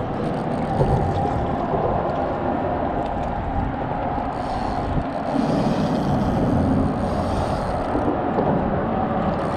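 Steady road-traffic noise from vehicles crossing the concrete highway bridge overhead, a continuous rumble and tyre hum.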